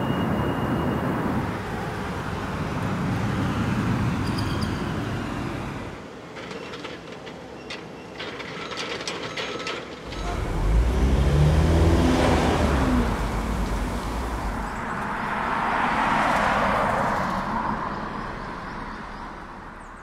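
City street field-recording excerpts: steady traffic ambience, then a quieter stretch with scattered clicks and knocks, then vehicles passing close by with a low rumble, each rising and falling as it goes by, fading out near the end.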